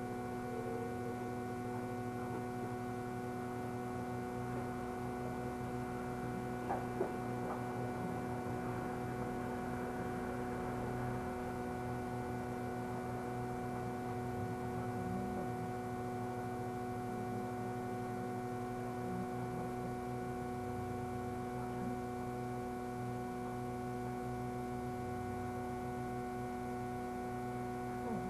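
Steady electrical hum of a Fukui Railway tram, heard from inside the car: several fixed tones held evenly throughout, with two light clicks about seven seconds in.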